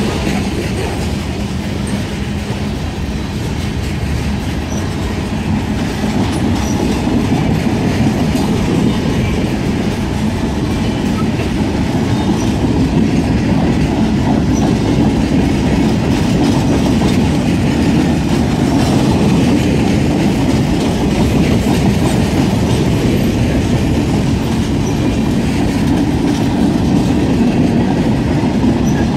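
Freight train cars, tank cars and then coal gondolas, rolling past at speed, their steel wheels running on the rails in a steady, loud noise that grows a little louder after about ten seconds. A low steady hum fades out in the first few seconds.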